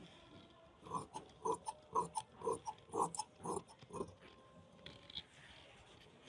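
Long-bladed tailor's scissors cutting lining fabric along a chalk line: a faint run of about a dozen snips, roughly three a second, stopping about four seconds in.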